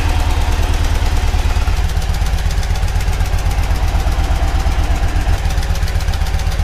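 Yamaha V Star 1100's air-cooled V-twin engine idling steadily, warming up just after a cold start.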